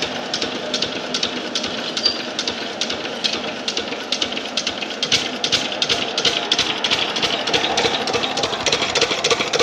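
Stationary single-cylinder diesel engine with twin flywheels running steadily, driving a well water pump, with an even rhythmic chug of knocks.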